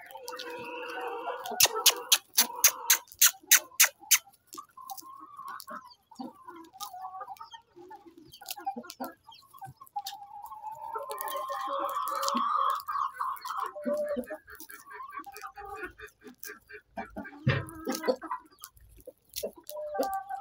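Flock of free-range chickens clucking, with a quick run of sharp clicks about two seconds in.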